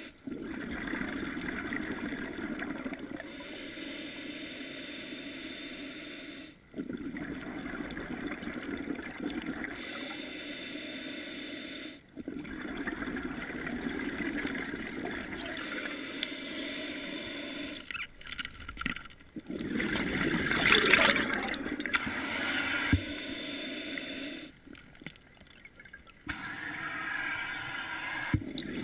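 Muffled underwater noise of a scuba diver's breathing: a steady hiss and gurgle of regulator air and bubbles, with a louder gush of exhaust bubbles about twenty seconds in.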